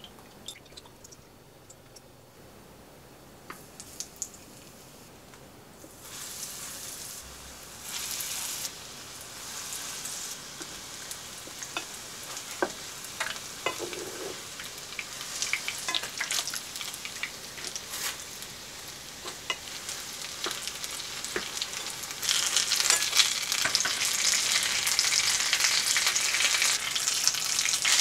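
Breaded cheese-potato croquettes shallow-frying in oil in a nonstick pan, sizzling, with scattered light clicks of a wooden spatula rolling them over. The sizzle starts about six seconds in and gets clearly louder about twenty-two seconds in.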